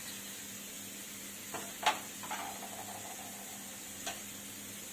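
A spoon clinks against the spice bowls and the kadai a few times, the loudest clink near two seconds in, followed by a short ringing. Another light clink comes near the end. Under it runs the steady low hiss of masala frying in the pan on the gas stove.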